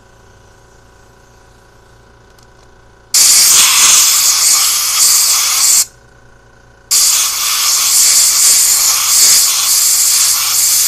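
Compressed air hissing from a blow gun into a carburetor's threaded hole in two long blasts. The first starts about three seconds in and lasts under three seconds. The second starts about a second later and is still going at the end. The air is blowing debris out of damaged threads.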